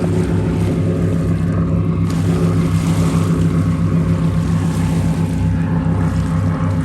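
Motorboat engine running at a steady pitch, a low, even drone.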